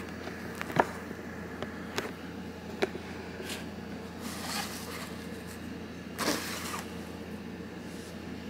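Handling noises from a cardboard mailing box: a few light taps in the first three seconds, then short scraping rustles around the middle and again just after six seconds, over a steady low hum.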